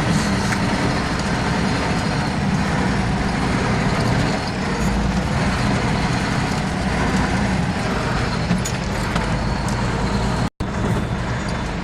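Off-road vehicle's engine running steadily as it drives along a rough forest track. The sound cuts out for an instant near the end.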